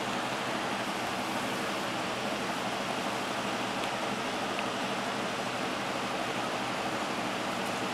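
A steady, even hiss with a faint low hum underneath, unchanging throughout.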